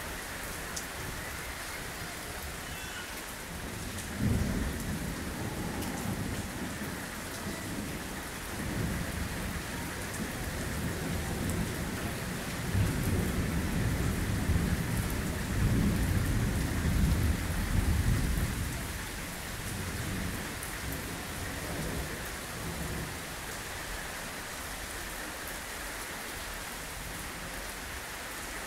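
Heavy rain falling steadily, with thunder breaking about four seconds in and then a long rolling rumble that swells past the middle and fades away before the end.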